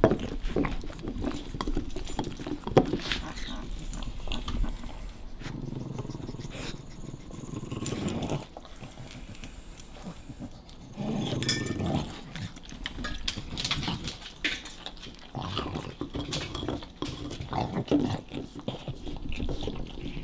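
Bulldog growling in low, drawn-out bouts while guarding its chew bone from another dog, with clicks and scuffles between the growls.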